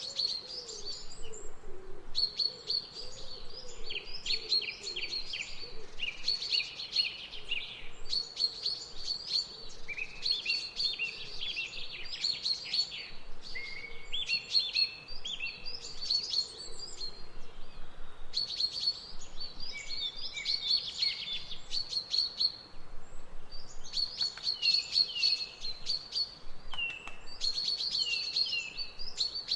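Wild birds singing: bouts of rapid chirps and quick falling trills, each lasting a second or two and repeated after short pauses.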